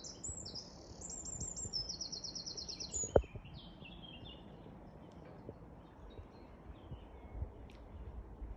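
A songbird singing a phrase of quick, high repeated notes, then softer high notes. A single sharp knock sounds about three seconds in.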